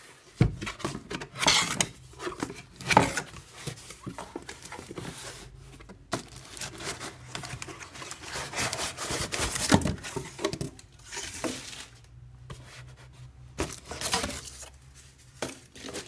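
Cardboard box flaps being opened and rubbed, with cardboard scraping and the crinkling of a plastic bag being handled. The rustles come irregularly, with a low thump just after the start and a few louder scrapes.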